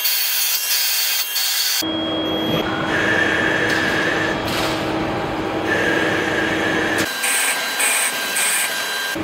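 TCK56Y CNC turning-milling lathe cutting a spinning metal part, with the spindle running under a steady hum and the tool hissing through the metal while threads are turned. The sound changes abruptly about two seconds in and again near the end, where it turns high and thin with three short high-pitched pulses.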